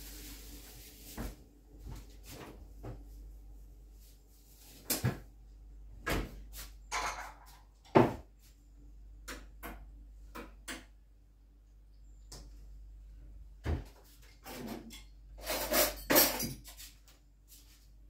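Kitchen handling sounds: a scattered run of sharp knocks and clicks as cupboards and drawers are worked and crockery is set down, with the loudest knock about eight seconds in and a quick cluster of clatter near the end.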